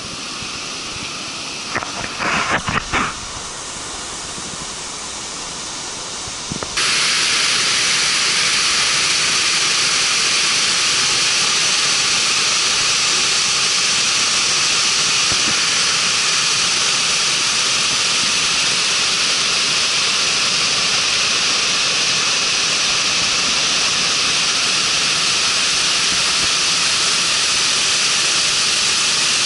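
Steady rushing roar of a waterfall in heavy flow, which cuts in suddenly about seven seconds in and then stays loud and even. Before it there is a quieter, even hiss with a few brief knocks.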